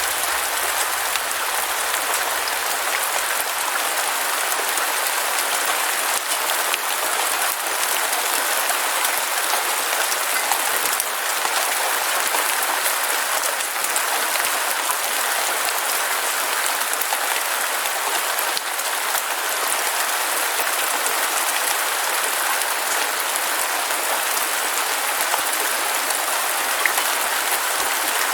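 Steady heavy rain, a dense even patter of drops with scattered faint ticks and no let-up.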